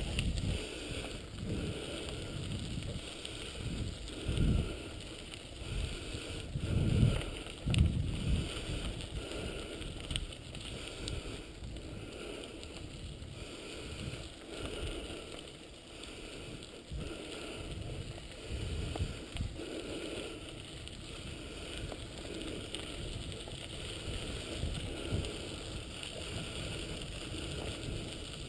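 Steady rolling noise of a wheeled rig pulled by a dog team over a gravel road, with wind buffeting the microphone and a few irregular low thumps from bumps or gusts.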